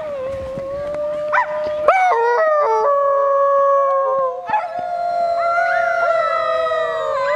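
A group of people howling like wolves, several voices overlapping in long held howls at different pitches, with new howls sliding up and joining in. Higher-pitched howls from young children are among them.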